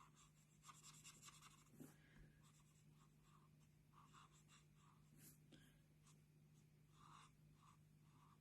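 Faint scratching of a marker coloring on paper, in short irregular strokes.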